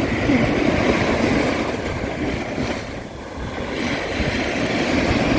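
Wind buffeting the microphone: a steady rushing rumble with uneven gusts, easing briefly about three seconds in.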